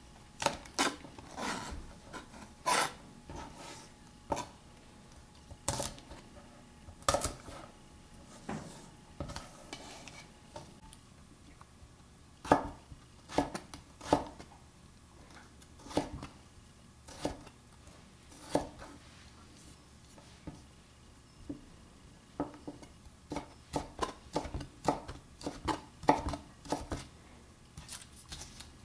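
Large kitchen knife chopping green beans and then krachai root on a wooden butcher-block counter: separate knocks of the blade on the wood, a second or two apart, coming in a quicker run near the end.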